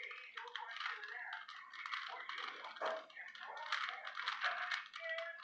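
Rubik's cube being turned by hand: rapid, irregular clicking and rattling of the plastic layers.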